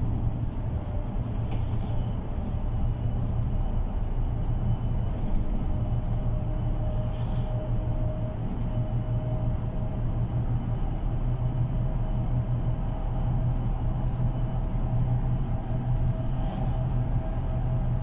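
Cabin sound of a MAN Lion's City Ü A20 diesel bus on the move: a steady engine and road drone with a faint steady whine and small interior rattles and clicks.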